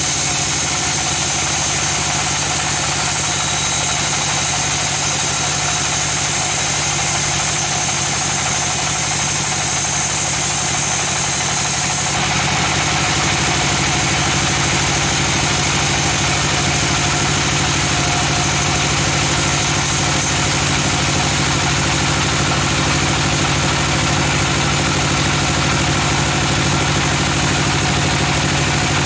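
Sawmill machinery running steadily, with a high hiss over it that cuts off suddenly about twelve seconds in.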